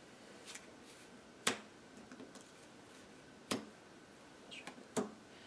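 Sleeved playing cards being laid down and handled on a tabletop: three sharp clicks about two seconds and then a second and a half apart, with a few softer ticks between them.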